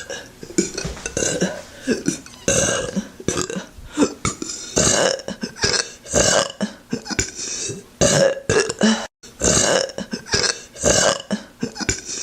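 A woman burping over and over: a rapid run of short, loud burps, with a brief break about nine seconds in.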